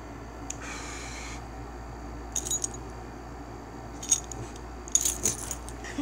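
Metal rings and tag on a dog's collar jingling in three short spells as the dog is rubbed and shaken, the last and busiest near the end, with a soft rustle about a second in.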